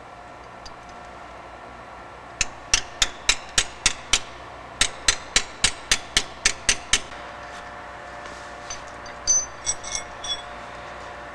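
A hammer striking metal in two quick runs of sharp, ringing blows, about three to four a second, during the dismantling of a turbocharger. A few lighter metallic clinks follow near the end.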